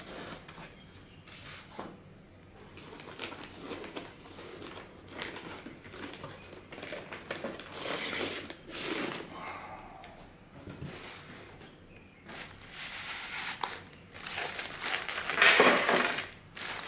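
Cardboard and plastic packaging being handled: a cardboard insert lifted out of a box and a plastic-bagged unit pulled out, rustling and crinkling on and off, loudest near the end.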